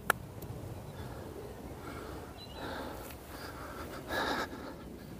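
One sharp click of a wedge's clubface striking a golf ball in a putting stroke, just after the start. Then quiet outdoor background, with a short breath-like rush about four seconds in.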